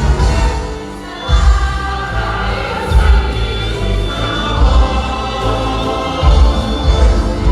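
Choir singing over music with a strong bass beat; the music drops briefly just before a second in, then comes back in full.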